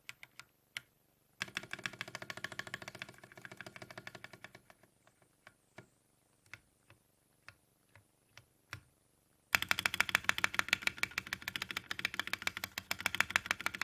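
Mechanical keyboard with Akko CS Jelly Black linear switches in an aluminium case, typed on: clacky keystrokes in a quick run, then single slow presses, then a louder burst of fast typing for the last four seconds.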